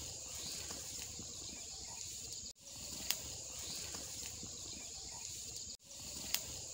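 Faint steady chorus of insects, a continuous high-pitched shrilling, with a sharp tick about every three seconds. The sound cuts out for a moment twice.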